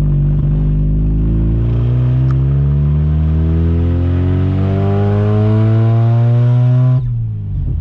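1983 Mazda RX-7's 12A rotary engine accelerating under load, its pitch climbing steadily for several seconds, then falling away suddenly near the end as the throttle is lifted.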